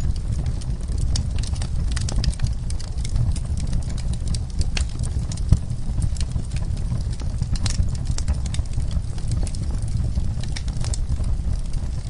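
Wood logs burning in a fireplace: a steady low rumble of flames with frequent sharp crackles and pops, and one louder pop about halfway through.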